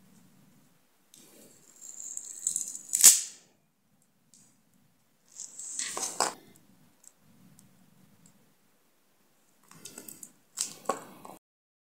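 A hobby knife scraping and picking at a smartwatch's small circuit board, in short bursts of scratchy noise. The first burst ends in a sharp click about three seconds in, and near the end come two quick scrapes close together.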